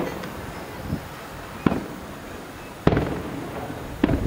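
Aerial firework shells bursting at a distance: four sharp bangs, one right at the start and the others about a second or so apart, each trailing off in a fading echo.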